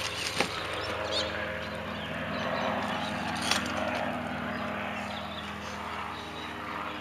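Robinson R22 helicopter flying past overhead, its rotor and engine making a steady drone.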